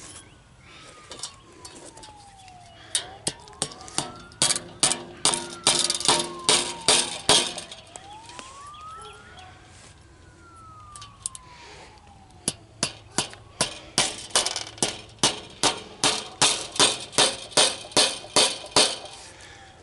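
A hammer drives fence staples into a wooden fence post, two runs of quick, even strikes at about two to three blows a second, the second run longer. Under the hammering, a siren wails faintly far off, its pitch rising and falling slowly.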